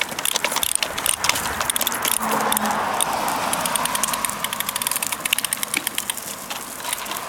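Small child's push tricycle rolling along a concrete sidewalk: its hard wheels and frame give a steady rattle with many quick clicks and knocks.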